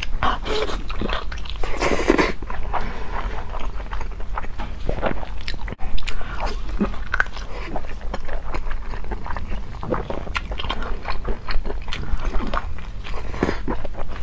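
A person bites into and chews a large blood sausage with a soft filling, close to a clip-on microphone, making an irregular run of short wet mouth clicks.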